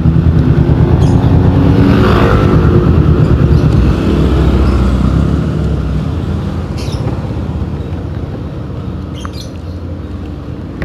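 Kawasaki Ninja 250fi's parallel-twin engine running through an aftermarket KP16 exhaust with a pulsing beat. About two seconds in the pitch falls as it slows, and the sound then eases down to a quieter run.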